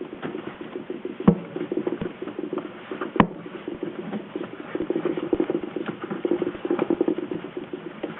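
Bicycle tyre bead being pushed by hand back inside the wheel rim, rubber rubbing against the rim in a fast run of small scuffs. Two sharp clicks come about a second and three seconds in.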